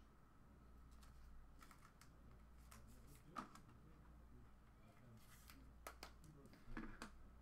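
Near silence with low room hum and a few faint, irregular clicks and taps, like light handling or key presses.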